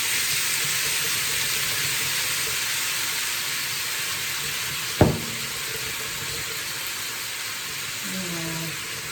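Meat, onion and garlic sizzling steadily in a frying pan with soy sauce just added, the sizzle easing slightly over time. A single sharp knock about five seconds in.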